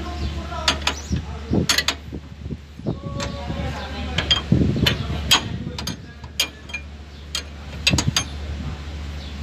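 Metal hand tools clinking and knocking irregularly against steel parts of a pickup's front spindle and hub assembly as it is being taken apart, over a steady low hum.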